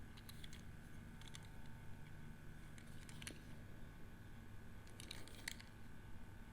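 Quiet room with a steady low hum and a handful of faint, light clicks scattered through it, the clearest about three seconds in and again past five seconds.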